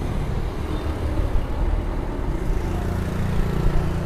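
Street traffic: a steady low rumble of passing vehicle engines, with one engine's hum growing a little stronger in the second half.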